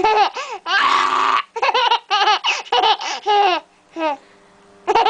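Baby laughing in a string of short, high-pitched bursts with brief pauses between them.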